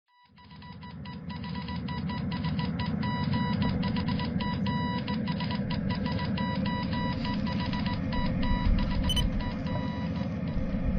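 Background music fading in, with a fast, irregular electronic beeping pattern over a steady low rumble; the beeping stops shortly before the end.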